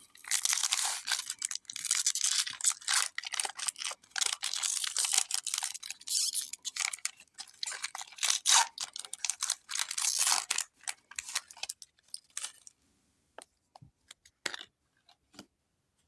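Foil Pokémon booster pack wrapper crinkling and tearing as it is worked open with difficulty: a dense crackling rustle for about twelve seconds, then a few light ticks.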